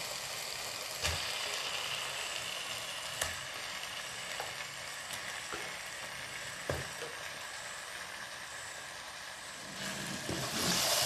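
Chicken pieces sizzling steadily in hot tomato-onion masala in a non-stick kadai, with a few short knocks as pieces go in. Near the end a slotted spatula starts stirring, and the scraping and sizzling get louder.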